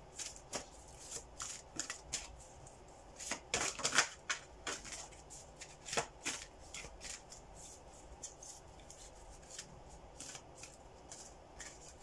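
A deck of playing cards being shuffled by hand: an irregular patter of soft card flicks and riffles. It is busiest a few seconds in and thins out after about the halfway point.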